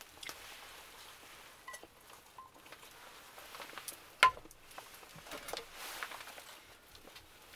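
Cookware being handled: light clinks and taps of chopsticks and a small cast-iron skillet, with one sharp metallic knock that rings briefly about four seconds in as metal cookware is set down.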